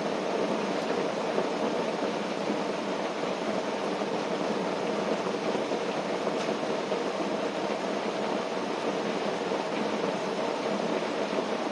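Rain falling steadily on a tent, heard from inside as a dense, even hiss.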